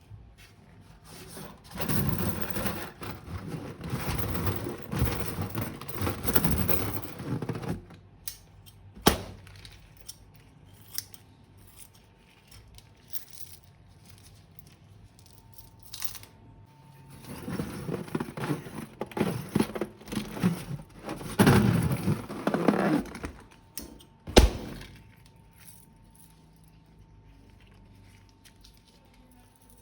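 Slime-making materials handled close to the microphone: two long bouts of crinkling and rattling, several seconds each, and two sharp snaps, one about nine seconds in and a louder one about three quarters of the way through.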